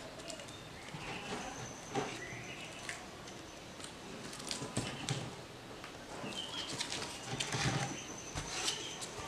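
Soft scrapes and clicks of a wooden stick scraping polyester putty onto a plastic spreader and knocking against a tin can. Birds chirp now and then in the background.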